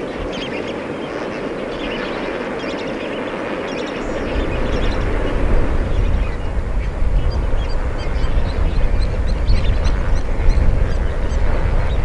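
A large flock of lesser flamingos calling, a dense din of many overlapping calls. A low rumble comes in underneath about four seconds in.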